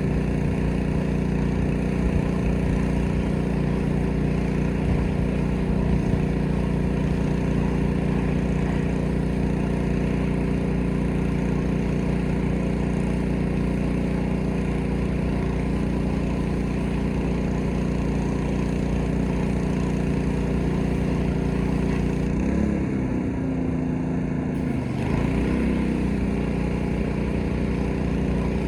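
Gas-engine pressure washer running steadily under the hiss of the spray. About three-quarters of the way in, the engine note dips and comes back up, and the high hiss drops out for a couple of seconds.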